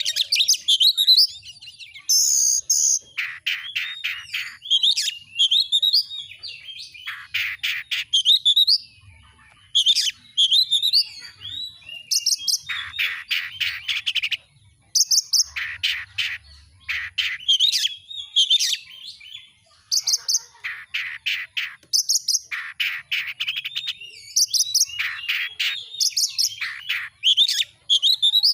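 Oriental magpie-robin (kacer) singing a loud, varied song: clear whistled phrases alternating with fast rattling trills, delivered in repeated bursts with short pauses between them.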